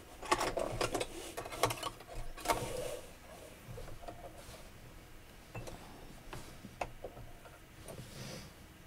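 Hands re-threading an embroidery machine with black thread. There is a quick run of small clicks and rustles over the first two or three seconds, then fainter scattered clicks and handling noises.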